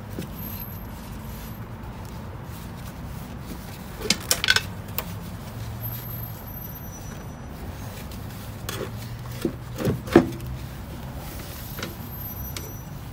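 Metal hand tools and bolts clinking at a golf cart battery terminal as its hardware is worked loose: a few sharp clinks about four seconds in and another group around ten seconds in, the loudest near the end of that group, over a low steady hum.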